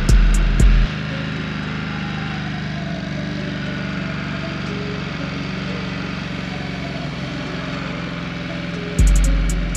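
Ducati XDiavel's 1262 cc V-twin engine running steadily at low speed as the motorcycle rolls slowly. An edited-in hip-hop beat with heavy kick drums plays over it for about the first second and comes back about nine seconds in.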